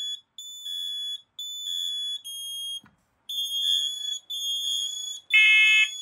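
FireX FADCM smoke and carbon monoxide alarm sounding in test mode: its piezo horn gives long, high-pitched beeps in quick succession, with a brief break about three seconds in. Near the end a louder alarm tone with a lower, fuller sound starts up.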